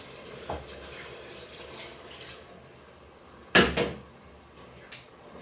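Kitchen cooking noises: a steady watery hiss that stops about two and a half seconds in, then one loud clank of cookware about three and a half seconds in, with a few light knocks around it.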